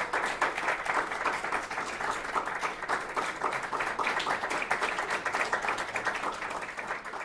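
Audience applauding, a dense steady clatter of clapping hands that thins slightly toward the end.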